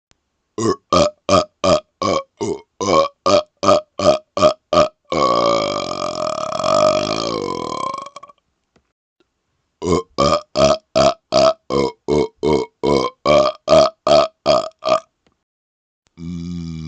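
A man burping on command: a rapid-fire run of short burps at about three a second, then one long drawn-out burp of about three seconds that wanders in pitch. After a brief pause comes another rapid-fire run of short burps, and a long burp starts near the end.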